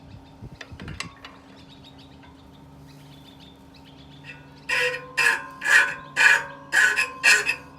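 A few light metallic clicks in the first second, then, about two-thirds of the way through, a bird starts calling loudly over and over, about two calls a second. A steady low hum runs underneath.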